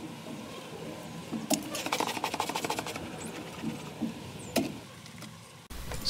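A quick run of wooden clicks and knocks from about a second and a half in to about three seconds, with one more knock later: a beehive's wooden frames being pushed back together in the box.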